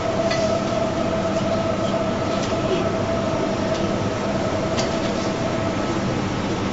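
Steady background hiss with a constant hum and a faint whine running through it, and a few faint clicks.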